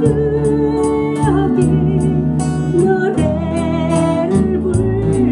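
A woman singing a Korean folk-pop ballad while strumming an acoustic guitar, over a backing track with bass notes and a steady ticking beat.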